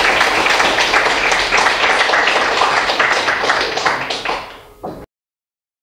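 Audience applauding, thinning out near the end and then cutting off abruptly about five seconds in.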